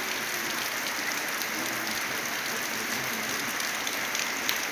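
Heavy rain falling steadily: a dense, even hiss with scattered sharper drop hits.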